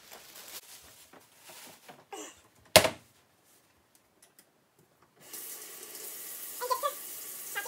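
Kitchen tap turned on, water running steadily into a stainless steel sink from about two-thirds of the way in. Before it, light handling knocks and one loud clunk a little before halfway.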